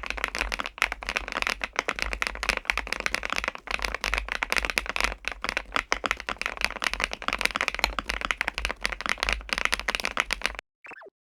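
Fast, continuous typing on a KiiBOOM Phantom81 Lite mechanical keyboard: a dense run of keystrokes from its Mochi switches in a foam-filled ABS case with a PC plate. The typing stops abruptly about ten and a half seconds in, followed by a brief falling tone.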